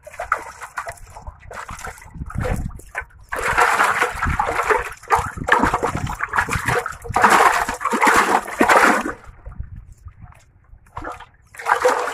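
Pond water splashing and sloshing in irregular bursts, heaviest from about four to nine seconds in, then dying down.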